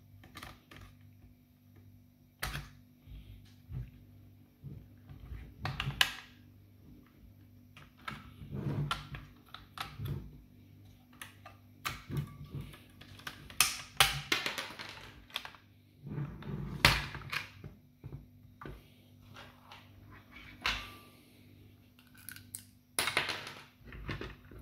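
Hard plastic parts of a Nerf Rival Roundhouse blaster being handled and fitted into its shell: irregular clicks, taps and knocks with brief rustling between them.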